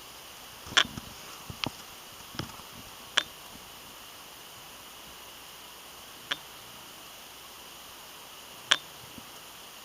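Six sharp, irregularly spaced clicks over a steady faint hiss; the loudest come about a second in, at about three seconds, and near the end.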